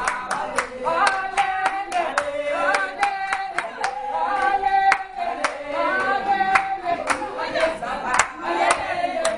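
A group of people singing together to steady, rhythmic hand clapping, about two to three claps a second.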